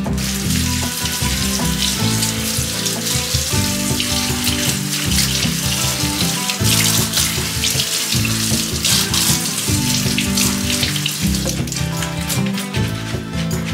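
Kitchen tap running, its stream splashing over lettuce leaves being rinsed by hand in the sink, over background music.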